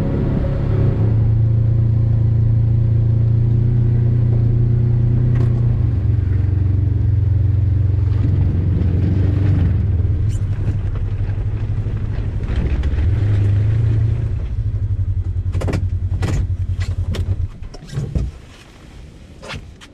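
Side-by-side UTV engine running steadily as it is driven, heard from inside the open cab. Near the end come a few sharp knocks and rattles, and the engine sound drops away as the vehicle stops.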